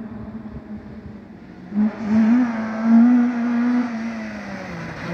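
A 1400cc-class rally car, a small Vauxhall Corsa hatchback, being driven hard on a gravel stage. Its engine is faint at first, then loud from about two seconds in, the revs rising and falling, and dropping near the end as it slows for the bend.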